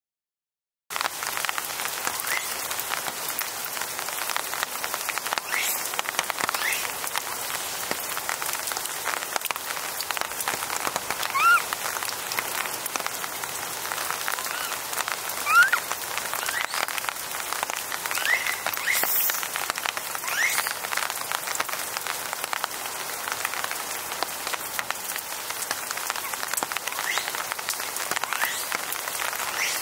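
Steady rain falling, a constant hiss that begins about a second in. Short rising calls from animals sound now and then over the rain.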